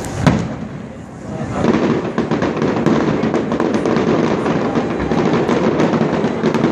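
Fireworks: a single sharp bang just after the start, then from about a second and a half in a dense, continuous crackle of many small rapid pops.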